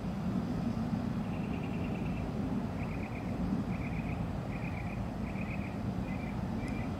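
Steady low rumble of distant traffic. Over it comes a series of short, high, rapid chirps, starting about a second in and repeating about once a second.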